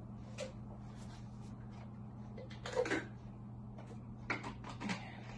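Things being handled in a kitchen: a few light knocks and clacks, the loudest about three seconds in, over a steady low hum.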